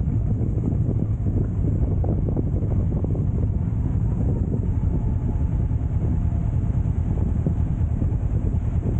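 Motorcycle engine running steadily under way, with wind buffeting the microphone.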